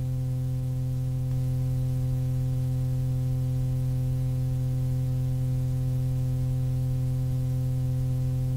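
A steady, unchanging low electronic drone: one sustained hum with a ladder of overtones, holding the same pitch and level throughout.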